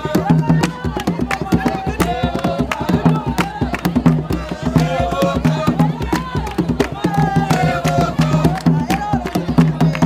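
Traditional Oroko dance music: upright wooden hand drums beating a fast, dense rhythm under group singing.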